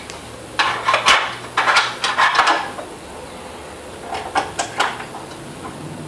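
Small screwdriver and screw clicking and scraping against the plastic console housing of an exercise bike as a screw is worked into place, in three short clusters of rattling.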